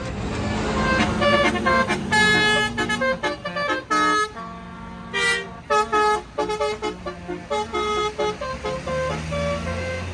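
Tour bus's Basuri telolet horn playing a quick tune of short notes that jump between pitches, sometimes two at once, over the bus's engine running.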